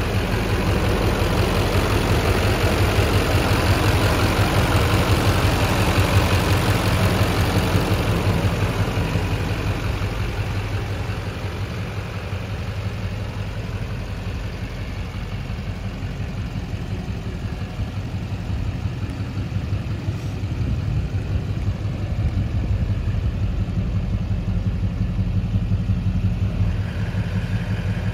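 Chevrolet Avalanche 2500's 6.6-litre Duramax V8 turbo-diesel idling steadily. It is louder and more clattery over the first several seconds at the open engine bay, softer through the middle, and fuller again near the end close to the exhaust pipe.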